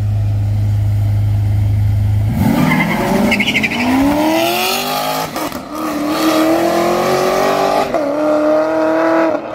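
Two cars, a Cadillac sedan and a Chevrolet Camaro SS, revved and held on the line with a steady low engine rumble, then launched side by side about two and a half seconds in. Tyres squeal at the launch, and the engine note climbs in pitch through two gear changes as the cars pull away.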